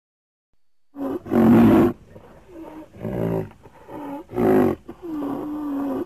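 Creature sound effect for a Deinotherium, a prehistoric elephant relative, mixed from animal recordings: a run of about seven roars and grunts of varying length, starting about a second in, loudest about one and a half and four and a half seconds in, with a longer steady call near the end.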